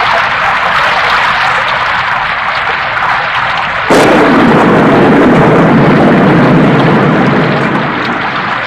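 Steady hiss of rain, then a sudden crack of thunder about four seconds in that rolls into a loud low rumble and eases off near the end.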